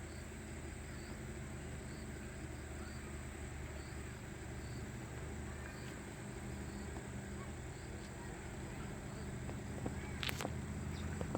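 Outdoor night-time-style insect chorus: a thin steady high buzz with a faint chirp repeating about every half second, over a low background hum. A sharp click about ten seconds in.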